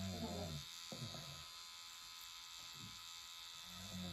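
Electric permanent-makeup pen buzzing steadily while tattooing lips. A louder low drone sounds in the first half-second and again briefly near the end.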